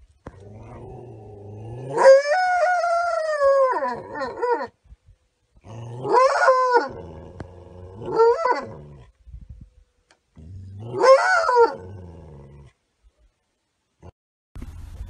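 A wolf cries out four times. The first cry is long: it starts low, jumps higher about two seconds in and sinks away near four seconds. Three shorter cries follow, the last ending near twelve seconds. The animal is presented as a rabies case.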